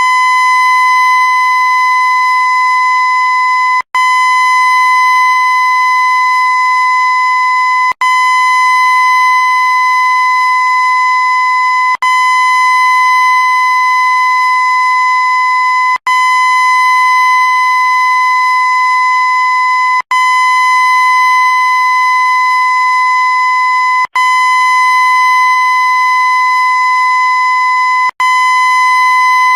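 A loud, steady high-pitched tone with a stack of even overtones that doesn't waver in pitch, played as a loop: it breaks off for an instant and restarts about every four seconds.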